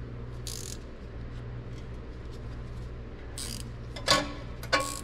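Metal band-tightening tool working a stainless steel zip tie around exhaust wrap. There are two short scrapes, then two sharp metallic clicks near the end, the second with a brief ring.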